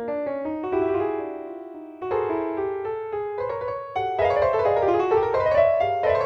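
Background music: a piano-like keyboard playing an atonal twelve-tone line of quick single notes, getting louder and busier about four seconds in.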